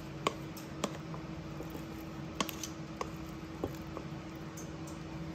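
Light, scattered taps and clicks, about six in five seconds, as more apple pieces are spooned into a mixing bowl, over a faint steady hum.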